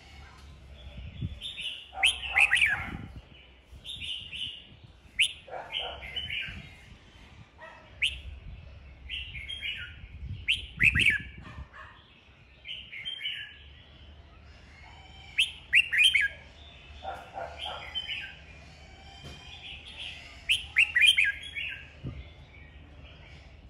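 Red-whiskered bulbul singing its competitive 'fighting' song: short, rapid whistled phrases with sharp falling notes, repeated every second or two.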